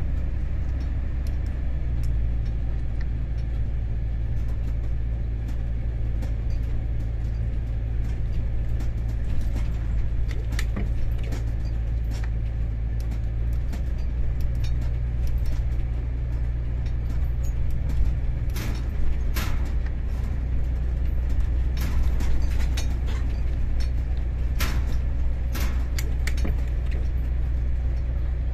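SSP 110 SW ballast regulator's diesel engine running steadily as the machine travels, with a low hum whose tone shifts slightly a couple of times. Sharp clacks of its wheels over rail joints and switches come in clusters through the middle and latter part.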